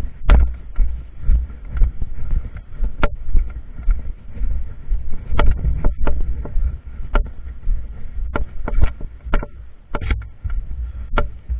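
Irregular sharp knocks and clicks, about one or two a second, over a low rumble: movement and handling noise from a player on the move with the camera.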